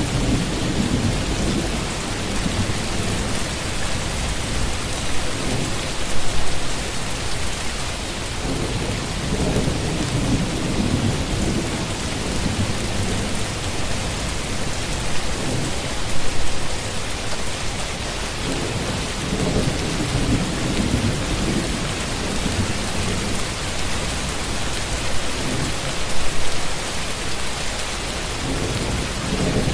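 Steady heavy rain hissing, with low rolls of thunder rumbling in about every ten seconds.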